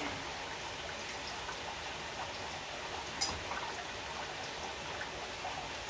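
Chicken stir-frying in butter in a pan: a steady sizzle with scattered small crackles and one sharper click about three seconds in.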